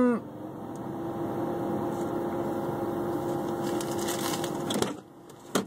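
A steady mechanical hum, like a running motor, with a faint constant tone in it. It cuts off abruptly about five seconds in, and a brief knock follows near the end.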